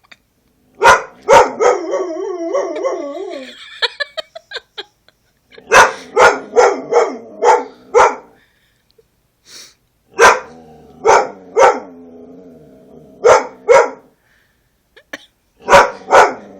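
A dog barking, in single loud barks and quick runs of about half a dozen. Between the barks come wavering, drawn-out howls, rooing.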